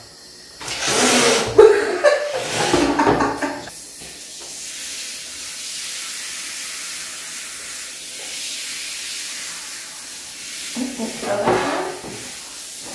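Handheld shower head spraying water onto a wet cat's fur on a tiled floor: a steady hiss from about four seconds in. Before it, a few seconds of loud voice-like sounds, with more near the end.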